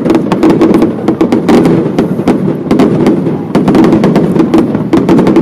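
Fireworks display going off in rapid succession: a dense barrage of sharp bangs and crackles, several a second, with no let-up.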